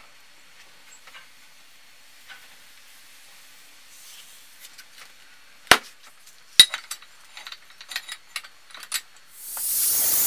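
Scattered light clinks and two sharp metal knocks as the steel leaf-spring blank is handled at the vise, followed by a quick run of small clicks. Near the end an angle grinder starts cutting into the leaf-spring steel with a loud, steady hiss.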